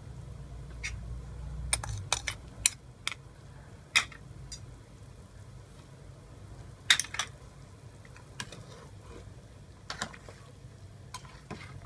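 A spatula, and later a ladle, stirring chicken in a boiling metal pot, knocking against the pot's side in scattered sharp clacks, bunched a couple of seconds in, near the middle and near the end, over a steady low rumble.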